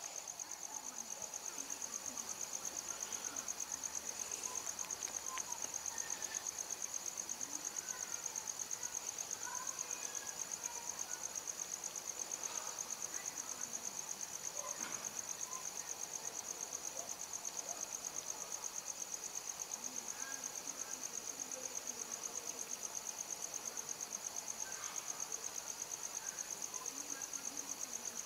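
A cricket trilling steadily, one high, fast-pulsing trill that does not break, with faint small rustles and clicks of wire being handled.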